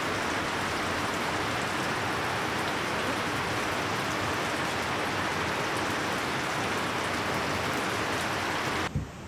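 Steady, even rushing of river water, which cuts off abruptly near the end.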